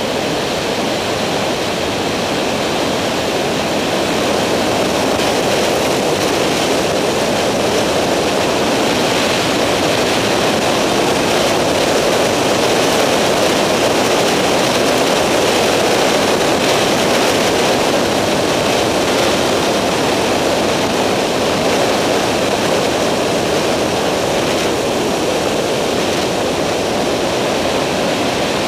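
Skyranger microlight in level flight, heard from on board: a loud, steady rush of engine, propeller and airflow noise.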